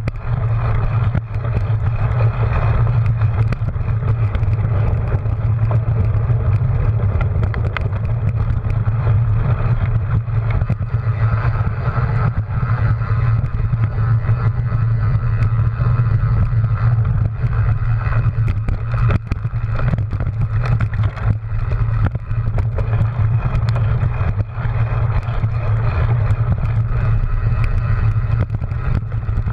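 Wind rushing over a handlebar-mounted action camera and a cyclocross bike's tyres rolling on a dirt course, with frequent small clicks and knocks as the bike rattles over bumps.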